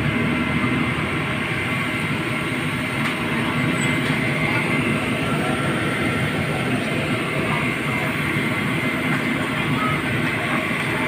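Fire trucks' engines running steadily, a loud continuous drone with a hissing edge, as they pump water for the hoses, with motorcycles passing close by.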